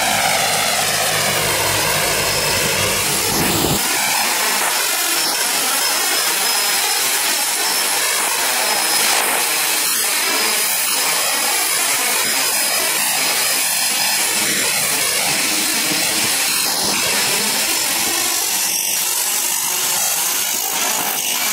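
Aircraft turbine engines running, a steady rushing noise with a thin high whine. Over the first few seconds several tones glide downward, and a deep rumble drops away abruptly about four seconds in.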